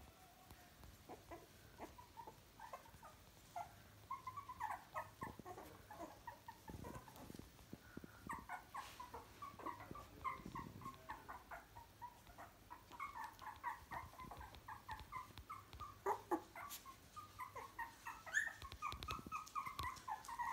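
Three-week-old puppies whimpering and squeaking: a long run of short, high, faint little cries, coming in quick clusters.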